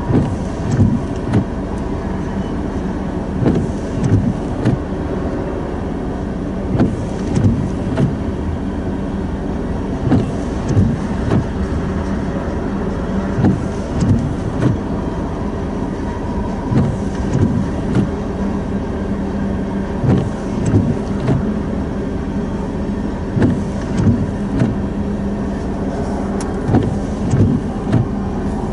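Freight train of tank cars rolling past, its wheels clacking over the rail joints in repeated clusters of two or three thumps over a steady hum.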